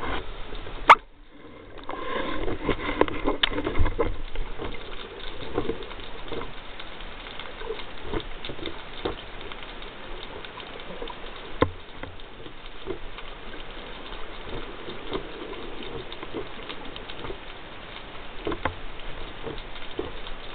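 Underwater noise picked up through a speargun-mounted camera's waterproof housing: a steady wash of water with many small crackles and scattered knocks from the gun being handled, including a sharp click about a second in.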